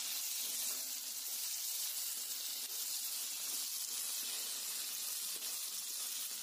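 Sliced bajji chillies and onion sizzling steadily in hot oil in a kadai as they are sautéed.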